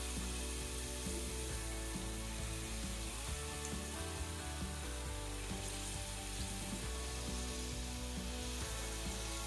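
Hot oil sizzling steadily in a wok as balls of gulgule batter (wheat flour sweetened with jaggery) deep-fry. Background music plays underneath.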